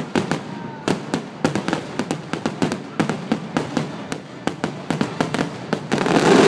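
Fireworks barrage: aerial shells bursting in rapid succession, several sharp bangs and crackles each second, swelling into a louder rush of noise near the end.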